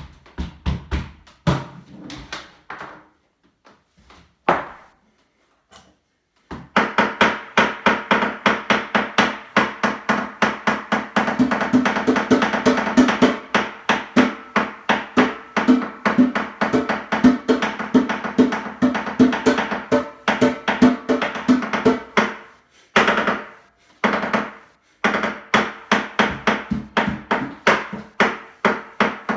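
Improvised drumming on a kitchen worktop and sink with a hand-held utensil and the hand: a few scattered taps, then a long run of fast, rhythmic strikes with a ringing pitch. It breaks off briefly and starts again near the end.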